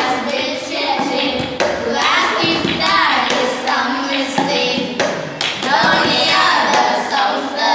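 Schoolchildren singing a poem together in unison, accompanied by a steady rhythm of taps and claps from an upturned cup beaten on a wooden board and hands clapping.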